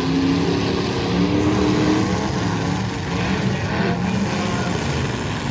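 Several demolition derby cars' engines running together, idling with uneven revs that rise and fall.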